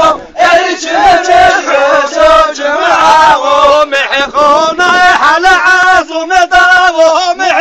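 A man singing a Zaza-language halay folk song: loud, continuous singing in long phrases that waver in pitch.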